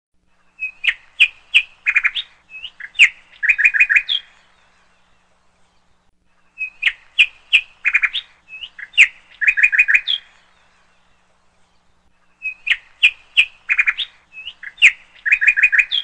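Bird song of sharp chirps and quick trilled notes, a phrase about three and a half seconds long that repeats identically three times with silent gaps between: a looped bird-call recording.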